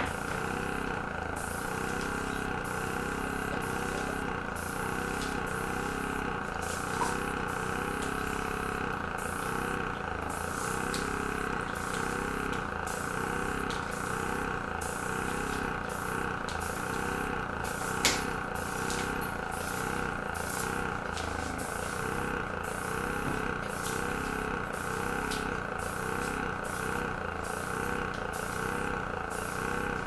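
Small airbrush compressor running with a steady hum, pushing air through the airbrush, though not strongly enough to blow the paint far. A single sharp click comes about eighteen seconds in.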